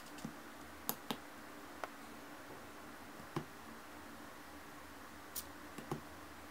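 Joystick-controlled pan-tilt rig of small hobby servos giving a few sharp, irregular clicks as it is steered, over a faint steady hum.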